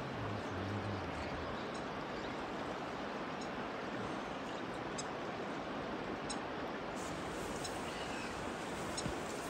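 Shallow river running over a stony bed: a steady rushing hiss, with faint short bird chirps now and then.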